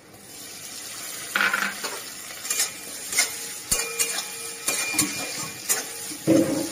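Chopped onion and tomato sizzling in hot oil and ghee in an aluminium karahi, with a spatula scraping and knocking against the pan many times as it is stirred.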